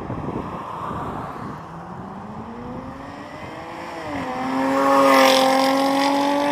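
Jaguar F-Type engine and exhaust accelerating, its note climbing, then dipping briefly and holding a steady higher pitch. It is loudest about five seconds in, as the car comes close.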